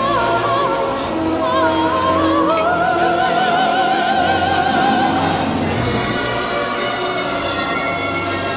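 Haunted-house ride soundtrack: a high operatic voice sings held notes with wide vibrato over orchestral music, the longest note held for about three seconds from about two and a half seconds in.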